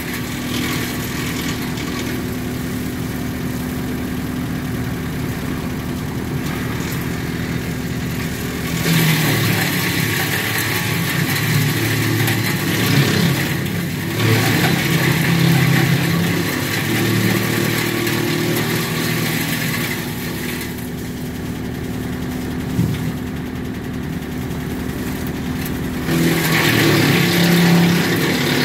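Tractor-driven WCX5 branch wood chipper running steadily with the tractor engine. In the middle and again near the end it grows louder and harsher as branches are fed in and chipped.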